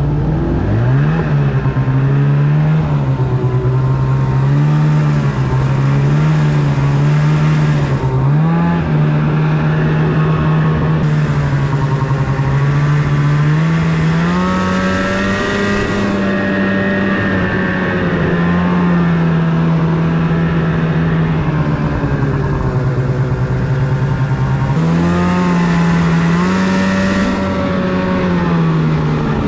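Snowmobile engine running while the sled is ridden, its pitch rising and falling with the throttle: it climbs about halfway through, settles, climbs again later, then drops just before the end.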